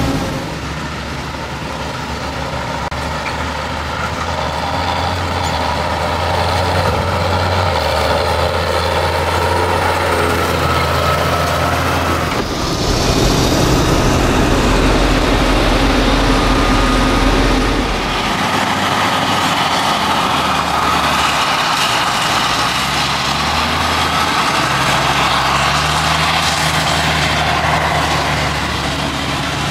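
Heavy diesel engines of a Claas Jaguar forage harvester and a tractor running steadily under load while chopping maize. The sound changes abruptly twice, about 12 and 18 seconds in.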